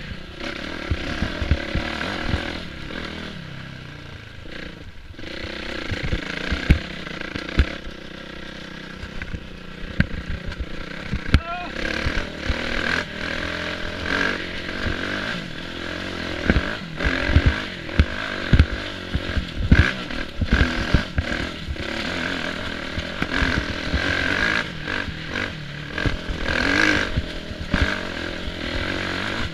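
Kawasaki KX450F's four-stroke single-cylinder dirt-bike engine running on a rough climb, its pitch rising and falling as the throttle is worked, with frequent knocks and clatter from stones and the bike's chassis over the rocks.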